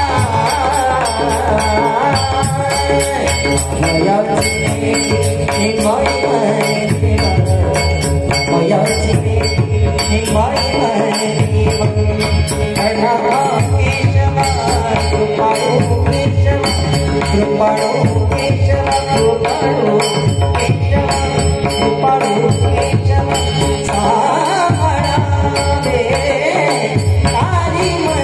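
Marathi devotional abhang sung by a man, with a drum keeping a steady beat and small hand cymbals jingling in time.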